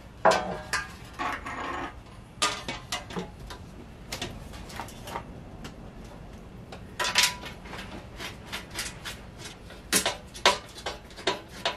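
Painted metal legs and bolts of a sewing-machine table stand clattering and knocking as the stand is bolted together, with a clattering patch near the start and later runs of quick clicks.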